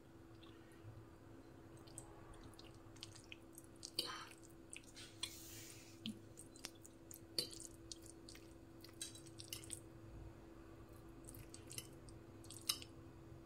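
A fork mixing and lifting sauce-coated thin noodles on a plate: soft wet squishing with scattered clicks of the fork against the plate, the sharpest about four seconds in, at about seven and a half seconds, and near the end. A faint steady hum underneath.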